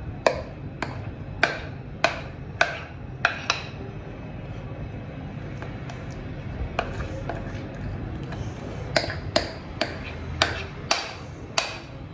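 Sharp knocks with a short glassy ring as a spoon scrapes and knocks thick cake batter out of a glass mixing bowl into a glass baking dish. The knocks come in two runs, about two a second, with a pause of about three seconds between them.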